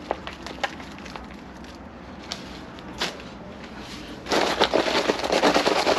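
Potting soil being scooped with a plastic scoop and tipped into a plastic seedling tray: scattered light crackles and patters at first, then, about four seconds in, a loud dense crunching rustle lasting a couple of seconds.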